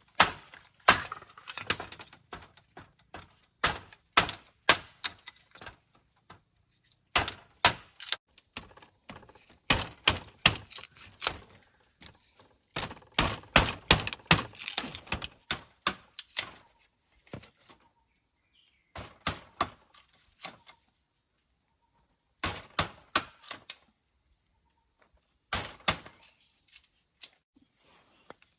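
Irregular sharp taps and knocks that come in clusters with short pauses, over a steady high-pitched insect drone.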